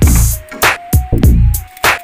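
Background music: an electronic drum beat with deep bass notes that slide down in pitch and sharp hits on the off-beats, under a simple held melody.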